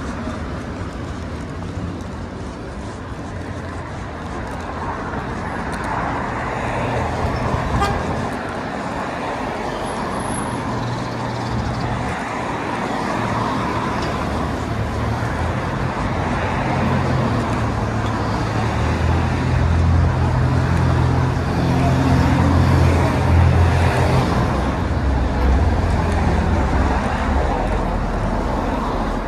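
City street traffic: cars and other vehicles driving past on the road beside the sidewalk, a steady wash of engine and tyre noise. A low engine rumble builds and gets louder about two-thirds of the way in.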